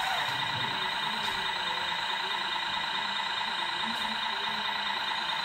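Radio-controlled model construction machines running: a steady, many-toned mechanical whine as the model Zettelmeyer ZL 4001 wheel loader raises its loaded bucket, with indistinct voices in the background.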